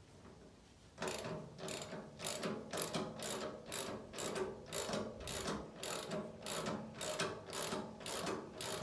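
Mechanical ratcheting clicks repeating steadily, about two to three a second, starting about a second in.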